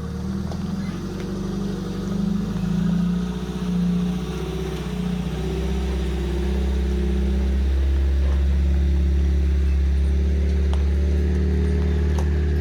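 Engine running, unsteady with rises and dips in revs over the first several seconds, then settling into a steady run about halfway through.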